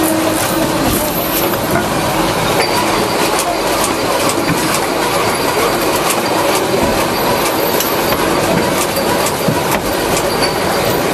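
Factory machinery running: a dense, steady mechanical clatter full of rapid small clicks and rattles, with a faint hum that fades about a second in.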